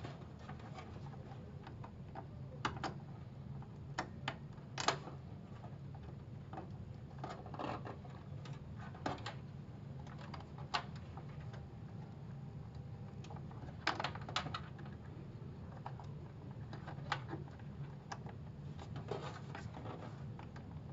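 Scattered light clicks and taps of small plastic front-panel connectors and their leads being handled and pushed onto the motherboard's header pins, a few seconds apart, over a steady low hum.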